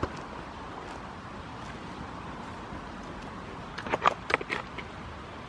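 A man making a quick run of kissing sounds at a goat kid: several short lip smacks about four seconds in, over a steady background hiss.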